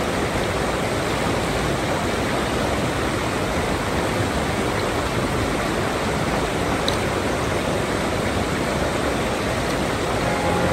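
Mountain stream water rushing steadily in an even hiss.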